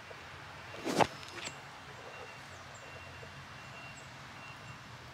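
Quiet outdoor background with a sharp brushing knock about a second in and a fainter one about half a second later: handling noise as the camera moves close among tomato plants and their trellis.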